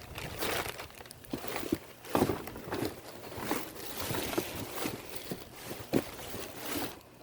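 Irregular rustling and crinkling with light knocks, from things being handled and moved about.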